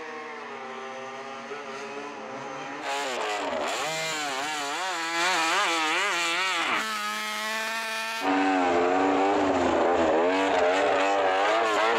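Repsol Honda MotoGP bike's engine revving, the pitch rising and falling a few times a second as the throttle is worked, fainter for the first few seconds and then much louder.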